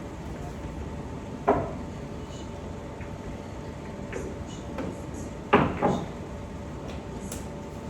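Billiard balls clacking: one sharp clack about a second and a half in, then two more in quick succession a few seconds later.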